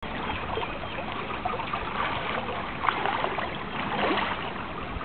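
Shallow creek water running, with splashes from a hooked steelhead thrashing at the surface about three and four seconds in.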